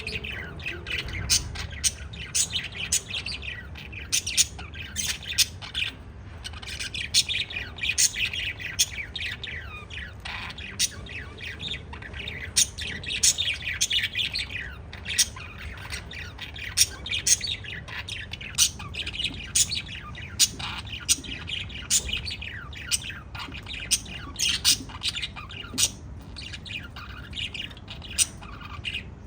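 Pet parrots chirping and squawking: a busy run of short, sharp, high-pitched calls coming many times a second, with hardly a pause.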